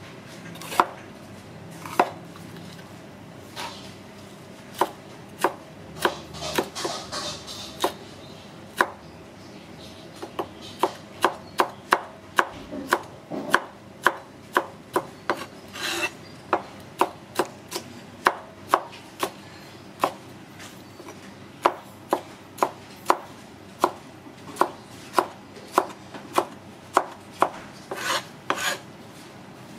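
Kitchen knife dicing bell pepper on a plastic cutting board: sharp separate knocks of the blade hitting the board, in runs of about two a second with short pauses between.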